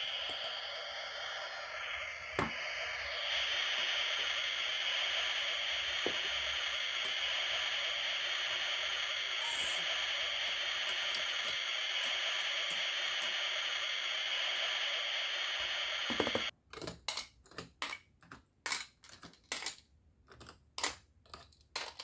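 Steady sizzling hiss of a grill cooking on a toy barbecue set, which cuts off suddenly about three-quarters of the way through. Light, sharp plastic clicks and taps follow as toy food skewers are lifted off the grill onto a plastic plate.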